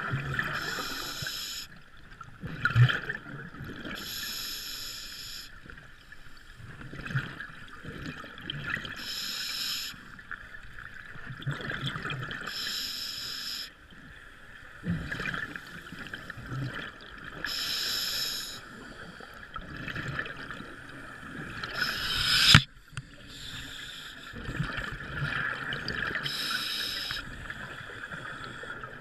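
Underwater scuba breathing through a regulator: bursts of exhaled bubbles about every four or five seconds over a steady hum. A single sharp knock about twenty-two seconds in.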